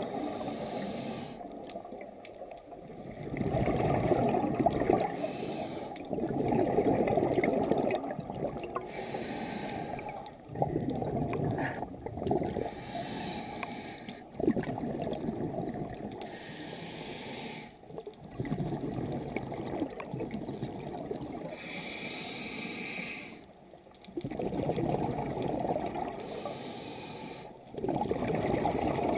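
Scuba diver breathing through a regulator underwater: a bubbling exhale every few seconds, with quieter hissing inhales between them.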